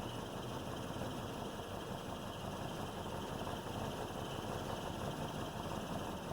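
2008 Lexus IS250's 2.5 L V6 engine idling steadily. The owner reports that it began knocking right after CRC Valve Cleaner was sprayed into the intake.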